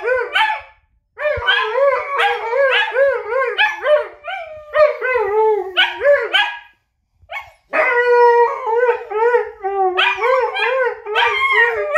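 Siberian husky 'talking': a fast run of yodelling woo-woo calls that swoop up and down in pitch several times a second, in phrases with two short pauses. After the second pause comes one longer held, howl-like call that breaks back into quick swoops.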